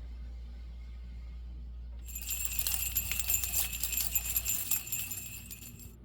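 Jingle bells shaken for about four seconds, a bright jingling with many quick rattling strikes that starts about two seconds in and stops near the end, over a low steady hum.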